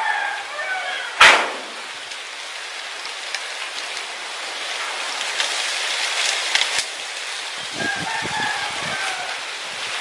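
A rooster crows in the distance, once around the start and again near the end. About a second in there is a single sharp knock, the loudest sound, over a steady background hiss.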